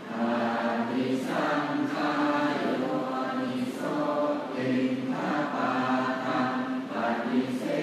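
Group of Buddhist monks chanting the morning service in unison, many voices on a steady low pitch, the phrases breaking briefly every second or two.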